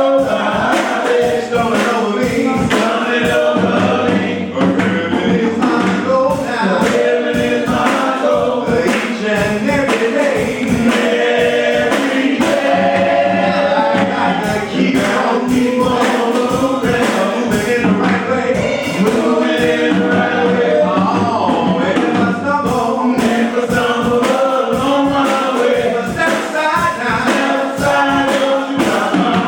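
Gospel choir singing with band accompaniment: sustained bass notes under a steady beat.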